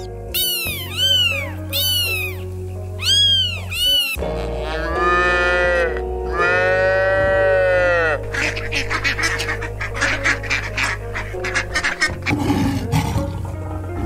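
A string of animal sound effects over a steady backing tune: three rising-and-falling cat meows, then two long drawn-out calls, then a quick run of duck quacks, and a low, rough lion roar near the end.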